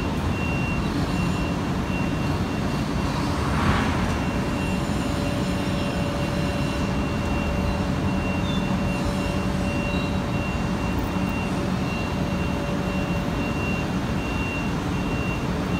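Demag AC 350 mobile crane's diesel engine running steadily under lifting, with a repeating high warning beep. A short louder burst of noise about four seconds in, and a steady whine comes in about a second later.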